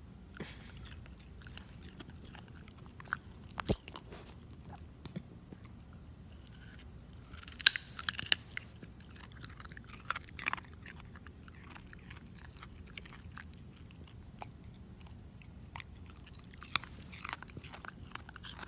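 A beagle chewing and crunching a raw carrot: irregular crunches with quieter chewing between them, the loudest coming in a quick group near the middle.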